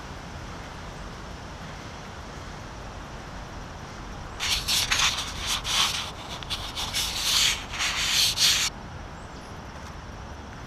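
Fingers rubbing and wiping across the GoPro camera's housing right at its microphone: a loud, scratchy run of rubbing strokes that starts about four seconds in, lasts about four seconds, and cuts off suddenly.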